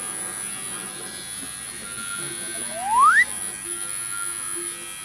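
Electric tattoo machine buzzing steadily in use on skin. About three seconds in, a short whistle-like tone rises quickly in pitch and is the loudest sound.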